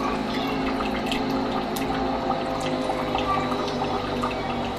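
Nespresso Vertuo Next coffee machine running its first-use cleaning cycle, its pump running steadily while a thin stream of water pours into a mug.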